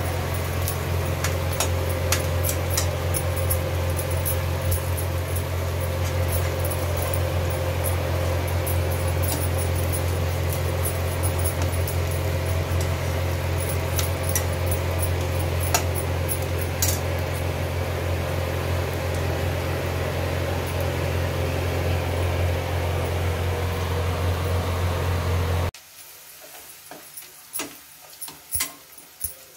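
A metal spatula scraping and clicking against a kadhai while chopped onions are stirred, over a loud steady low hum. The hum cuts off suddenly near the end, leaving only the spatula's clicks.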